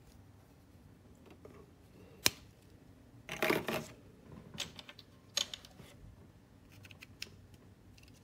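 Small plastic parts of a Bandai Super Minipla Voltron kit clicking as they are pulled apart and handled: one sharp snap about two seconds in, a short burst of clattering clicks about a second later, then a few lighter clicks.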